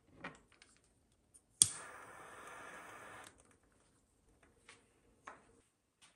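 A butane torch lighter sparks with one sharp click, then its gas jet hisses steadily for about a second and a half before cutting off. Light knocks of the lighter and the candle jar being handled on the countertop come before and after.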